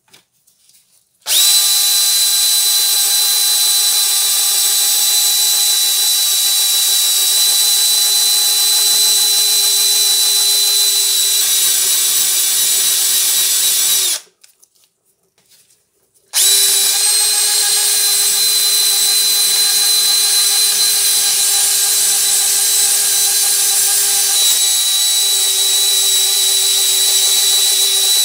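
Power drill spinning a wire brush against a rusty steel flange: a steady whine with the hiss of wire scrubbing metal. It starts about a second in, stops for about two seconds near the middle, then starts again and runs on.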